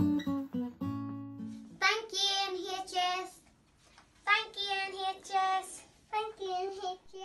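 The last notes of an acoustic guitar die away. From about two seconds in, a child's voice sings three short, high, held phrases with pauses between them and no accompaniment.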